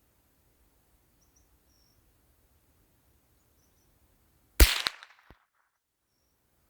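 A single rifle shot about two-thirds of the way in: one sharp crack with a short echoing tail, fired with Fiocchi Field Dynamics ammunition.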